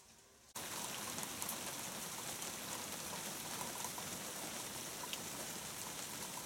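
Steady rain falling on the garden, cutting in suddenly about half a second in after near quiet.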